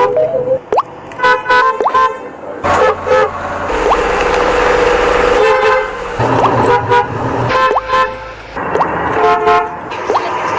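Car horns honking in short toots, several in quick succession, with one longer honk about four seconds in.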